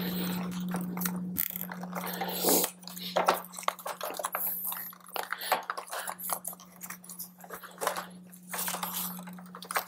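Hands fastening a nylon zip tie around motorcycle wiring harnesses: irregular rustling and sharp plastic clicks as the wires are handled and the tie is cinched. A steady low hum runs underneath.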